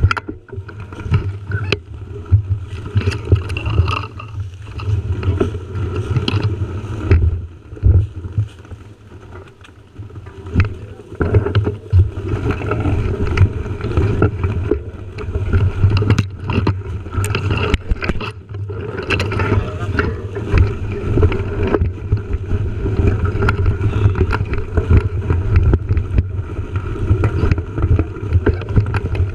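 Mountain bike ridden over a dry, leaf-strewn dirt trail, heard from a bike-mounted action camera: steady rumble of wind and tyres on the microphone with frequent rattles and knocks as the bike goes over bumps. It eases off for a couple of seconds about eight seconds in.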